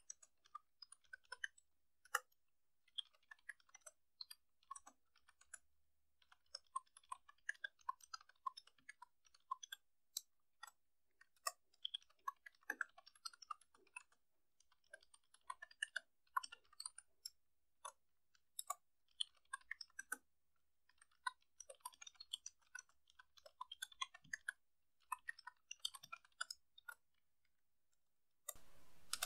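Typing on a computer keyboard: faint key clicks in quick runs broken by short pauses, stopping near the end.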